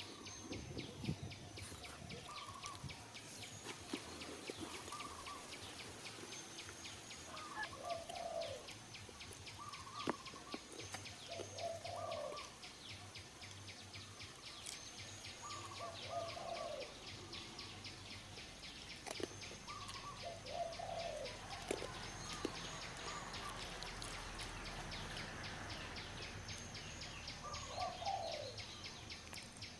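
Forest ambience: a bird gives short calls over and over, every few seconds, over a steady, fast, evenly pulsing insect chorus.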